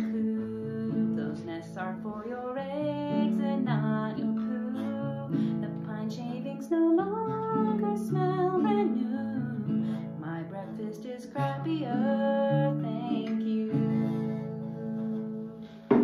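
Acoustic guitar playing the closing chord pattern of a song, with a voice singing without words over it at times. A sharp knock sounds right at the end as the playing stops.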